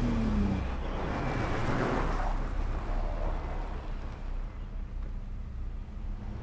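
Low, steady wind-like rumble and hiss that slowly fades, with a brief falling tone in the first half-second.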